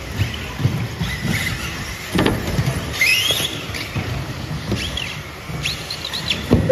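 Electric radio-controlled two-wheel-drive cars racing on a carpet track: motors whining up and down in pitch as the cars accelerate and brake, tyres squealing, and a few sharp knocks, the loudest about two seconds in and near the end.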